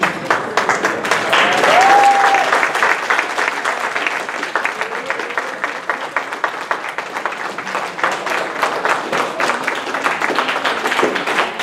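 Audience applauding with many hands clapping fast and steadily, and one voice calling out about two seconds in.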